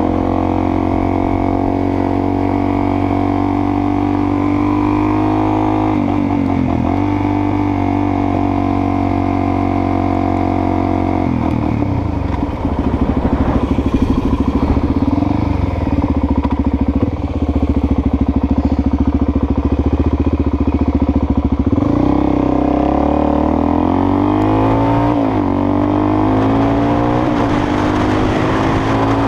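Suzuki DR-Z400SM's single-cylinder four-stroke engine running on the road, holding a steady pitch at first and dropping lower about eleven seconds in. In the last several seconds it climbs in pitch, with a break partway through where a gear change interrupts the rise.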